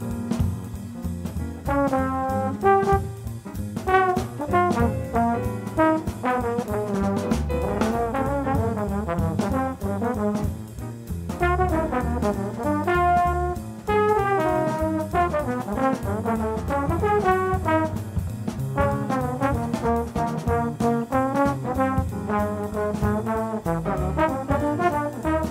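Tenor trombone playing a fast, bebop-style jazz solo line over a swing rhythm-section accompaniment with bass and cymbals. The trombone line comes in about two seconds in and runs in quick phrases with short breaks.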